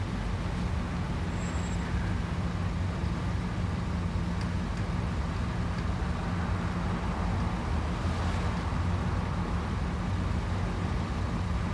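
Steady low engine hum of an idling car, heard from inside its cabin.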